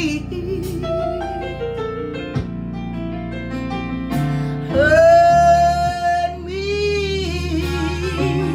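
A woman singing a gospel song over instrumental backing music. About five seconds in she holds one long, loud note, followed by a shorter wavering one.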